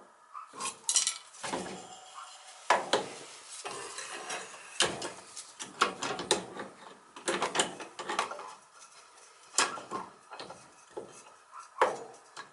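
Metal hand tools clinking and scraping against the metal parts of a Beckett oil burner: a run of irregular sharp clinks and short scrapes, as the blower fan wheel is being shifted on its shaft so it stops rubbing its shroud.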